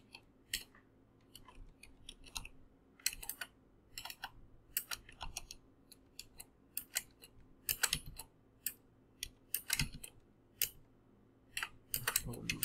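Typing on a computer keyboard: short irregular runs of keystrokes with brief pauses between them.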